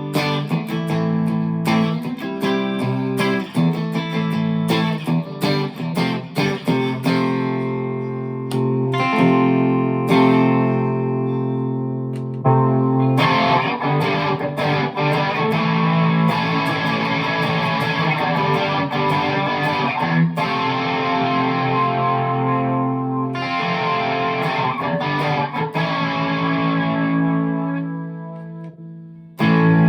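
Chapman ML1 Modern Standard electric guitar played through an amp with effects: quick picked notes and chords at first, then, from about halfway, sustained distorted chords left to ring. The playing fades briefly near the end, then starts again.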